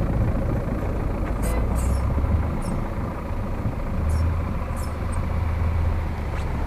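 GAZ-66 truck's engine running with a steady low rumble as the truck drives away on a snowy track, the rumble growing stronger about two-thirds of the way through. A few light, high clicks are heard along with it.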